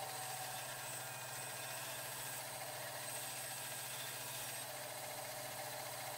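Band saw running steadily with no change in load: a low motor hum with a thin, high whine above it.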